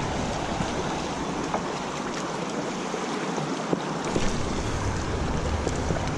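Steady rush of creek water running over shallow rocks, with wind rumbling on the microphone that lets up for a few seconds in the middle.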